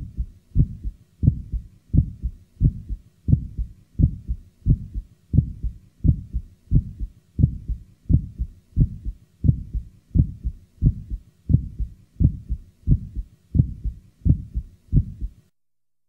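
Heart sounds heard through a stethoscope from a patient with mild aortic stenosis. The beat is regular at about 85 a minute, and each first heart sound is closely followed by an aortic ejection sound. The beats stop just before the end.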